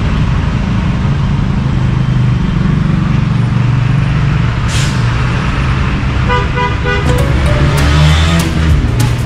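Steady low engine rumble of passing street traffic. About six seconds in there is a short run of pulsed tooting tones, like a vehicle horn, followed by a string of sharp clicks near the end.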